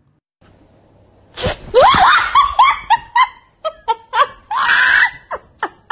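A person shrieking and laughing hard in high-pitched bursts. The bursts repeat roughly four times a second, with short gasping breaks between them.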